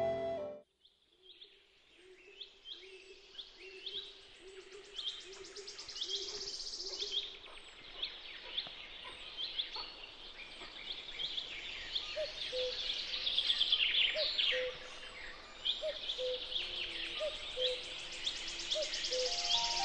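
Birds chirping and calling, a busy mix of many short high chirps with a few trills and some lower calls, fading in from silence about a second in.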